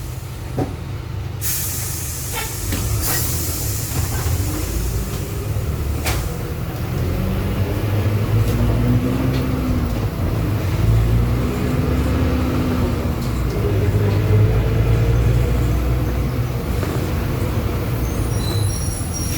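Marcopolo Sênior Midi bus on an Agrale MA 15.0 chassis under way, its drivetrain giving a steady deep rumble. There is a hiss of compressed air about two seconds in. From about seven seconds a whine rises and falls with speed: the differential, which is howling very loud.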